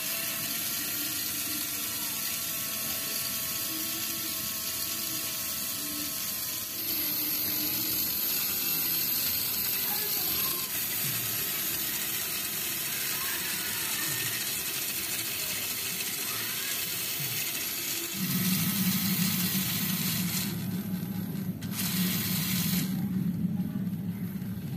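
The small electric motor and gear drive of a homemade miniature tractor with a rotavator attachment, running steadily with a mechanical whir. About eighteen seconds in, a louder low hum comes in.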